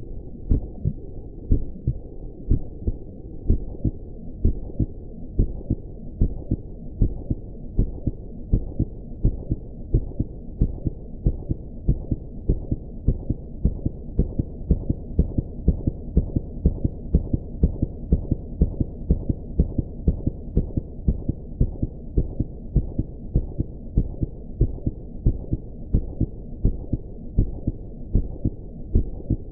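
Heartbeat sound effect: low, muffled thumps repeating in a steady, even rhythm over a continuous low rumble.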